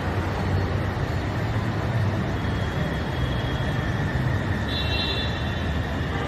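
Steady low rumble of city background noise on an open-air elevated metro platform, with a few faint high tones coming in near the end.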